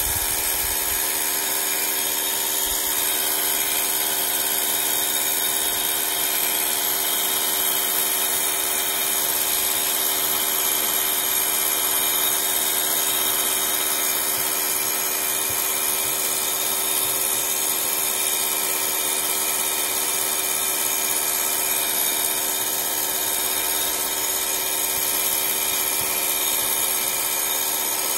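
Handheld hair dryer running steadily, blowing hot air over a vinyl skin on a phone to soften it so it seats down on the curved edges. A constant rush of air with a steady motor whine.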